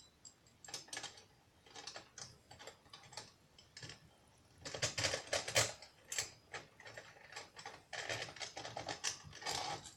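Small metal hardware clicking and rattling as a U-bolt and eye hook are handled and fitted onto a folding table's leg. The clicks come in loose runs, busiest about five seconds in and again near the end.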